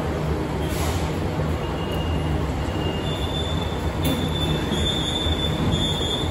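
Beijing Subway Line 6 train slowing to a stop at the platform: a steady low running hum, with a thin high-pitched squeal from the wheels and brakes starting about two seconds in and rising to a higher pitch about a second later.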